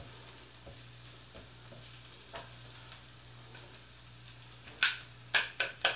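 Chopped onions and garlic sizzling softly in oil in an electric skillet while being stirred, with faint scraping of the utensil. Near the end the utensil is knocked three times on the skillet to shake off the food clinging to it.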